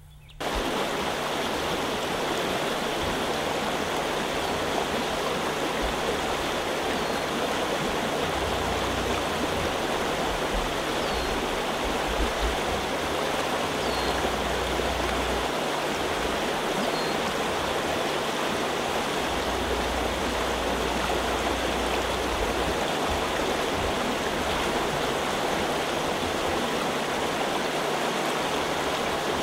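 A small stream rushing over shallow riffles: a steady, even rush of water that starts suddenly just after the start.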